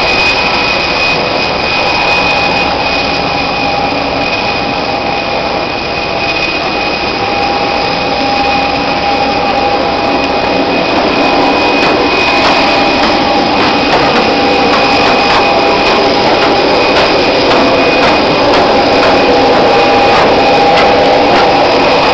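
Steady whine and rush of jet aircraft machinery on an airport apron: loud noise with two held high tones over it, growing a little louder about halfway through.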